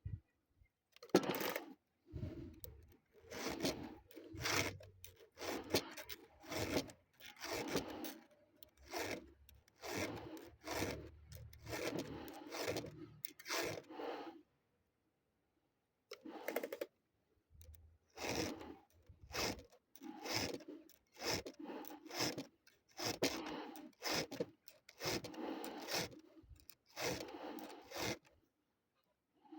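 Rhythmic rasping strokes of a hand tool, each scrape separate, about one a second, pausing for about two seconds midway and again briefly near the end.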